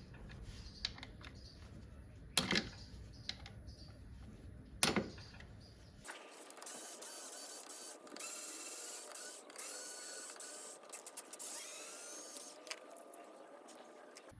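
Hand-tool work on a motorcycle's engine mounting screws. A few sharp metal knocks and clicks come first, then from about six seconds in a run of ratcheting and whirring with a rising whine near the end.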